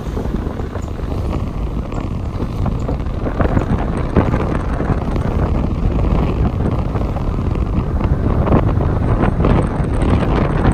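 Wind buffeting the microphone: a loud, steady low rumble with a gusty flutter.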